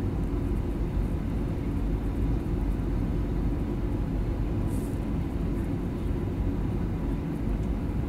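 Airbus A320-200 cabin noise on descent, heard from a window seat by the engine: a steady, deep rumble of the engines and rushing air, with a faint steady high tone running through it.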